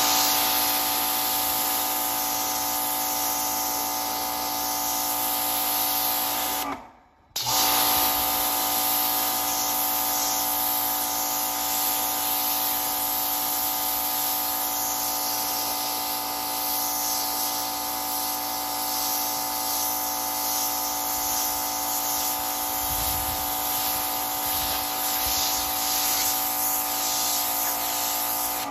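Pressure washer running and spraying water onto wet fabric and concrete: a steady motor whine over a hiss of water. It cuts out briefly about seven seconds in, then starts again and runs on.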